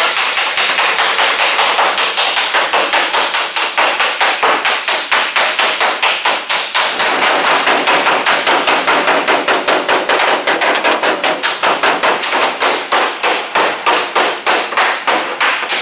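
Body hammer rapidly striking the steel rear quarter panel of a 1967 Pontiac Le Mans against a dolly held behind it, about five blows a second, some with a high metallic ring. This is hammer-and-dolly work going back and forth over the welded and ground seam to smooth the panel.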